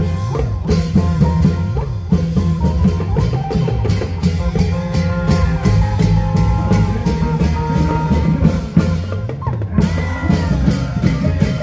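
Isan klong yao long-drum band playing a steady, driving beat, with a melody line carried over the drums.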